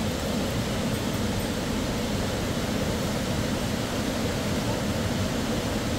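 Steady rush of a fast mountain river, an even, unbroken noise.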